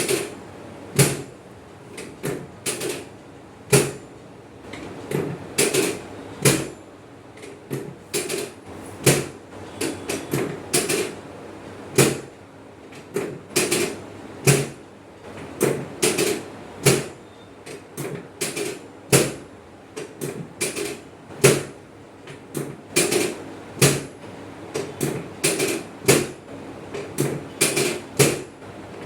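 Repeated sharp knocks and clicks, one or two a second at an uneven pace, many with a short hollow thud beneath.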